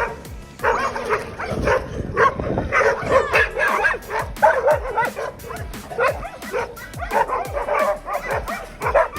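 Excited dog barking and yelping in quick, dense runs of short barks, starting about half a second in, with music underneath.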